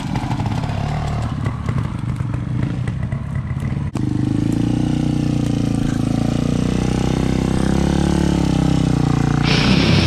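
Off-road motorcycle engines running at low revs on a forest slope, a little uneven in the first few seconds and steadier and louder after a cut about four seconds in. Music comes in just before the end.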